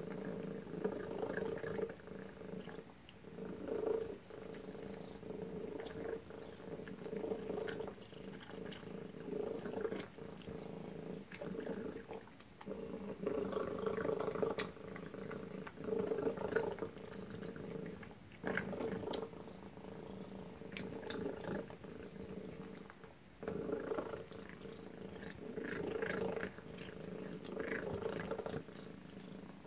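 Tabby cat eating wet food from a stainless steel bowl: wet chewing and lapping that come in uneven bursts.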